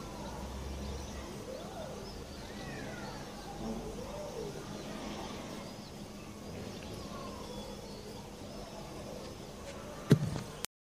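European goldfinch singing faintly, a run of twittering and slurred notes over a low steady background hum, with a single sharp click near the end.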